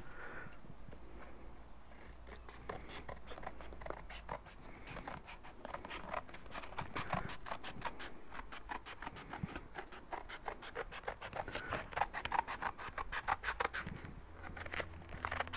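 Scissors cutting through thin cardboard along a curve: a quick run of short snips, sparse at first and coming thick and fast from about five seconds in.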